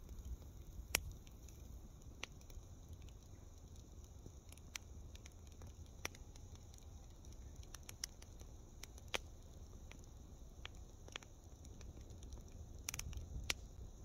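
Campfire crackling: faint, irregular sharp pops of burning wood, with the loudest pop about a second in and a cluster near the end, over a low steady rumble.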